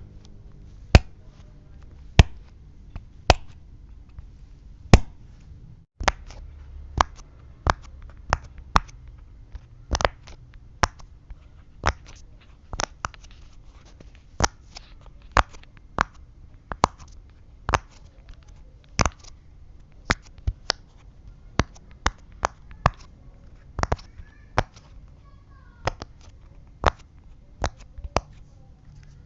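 Silicone pop-it fidget toy being pressed bubble by bubble: a long run of sharp pops, about one or two a second at an uneven pace.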